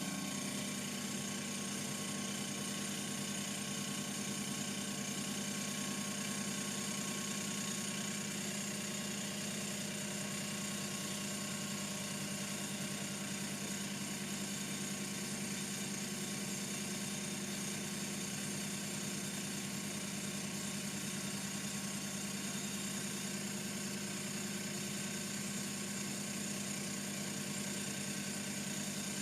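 TAIG benchtop milling machine running steadily, a constant motor hum with a high whine, as it takes a light finishing cut on a brass part.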